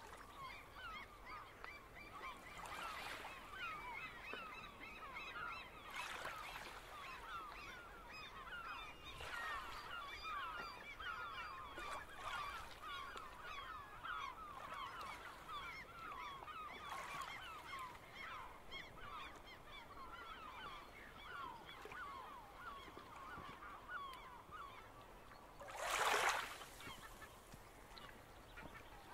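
A large flock of birds calling continuously, many short overlapping honk-like calls at once. Soft washes of small waves come every few seconds, with one louder wash about 26 seconds in.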